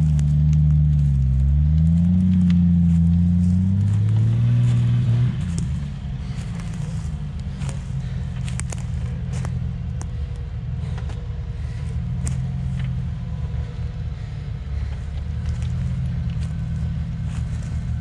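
Jeep Cherokee XJ engine working under load off-road, its pitch rising and falling as the throttle is worked; after about five seconds it drops to a quieter, steadier run. Twigs and branches crack and snap under the tyres throughout.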